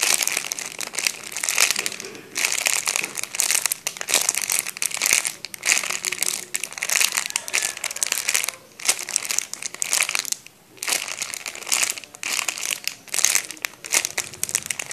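Clear plastic packaging of a squishy toy crinkling as it is handled and squeezed, in irregular bursts with a few short pauses.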